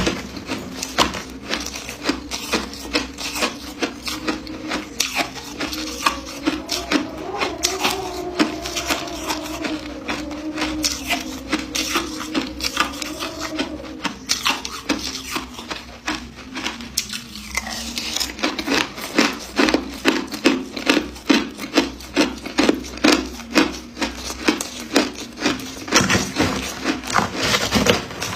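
Ice being chewed close to the microphone: sharp, crackling crunches, about two a second. A low wavering tone runs underneath through the middle part.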